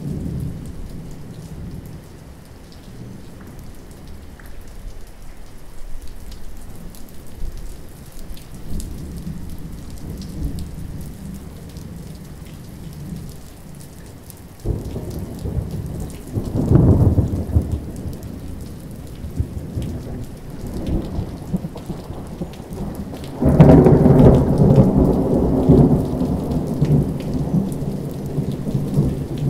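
Thunderstorm with rain and long rolling thunder. A loud rumble starts suddenly about halfway and swells to a crack soon after, and the loudest peal breaks in suddenly near the end.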